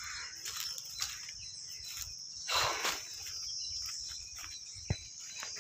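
Insects droning steadily in a high, even band, with a brief rustle about two and a half seconds in and a couple of short knocks near the end.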